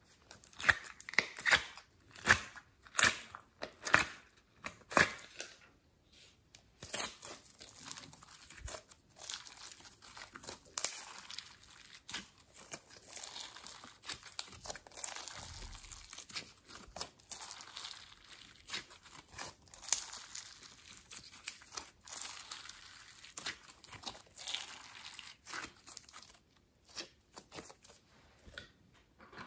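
Slime being pressed, stretched and squeezed by hand, giving a dense crackling of small pops and clicks. A few louder, sharper clicks and taps come in the first six seconds.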